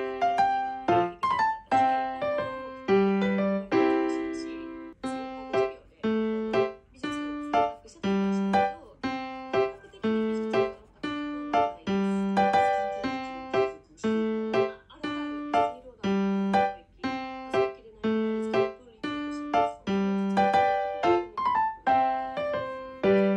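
Background music: a solo piano playing a simple, repeating melody of struck notes that each fade away.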